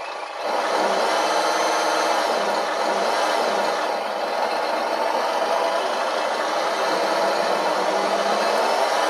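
GT Power entry-level RC truck sound module playing its simulated truck engine through its small speaker at full throttle. It is a steady, loud engine drone that comes in about half a second in. The drive motor is unplugged, so only the speaker's engine sound is heard.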